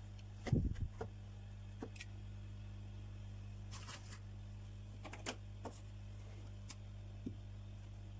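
Scattered light clicks and taps of small tools handling a phone on a workbench, over a steady low electrical hum.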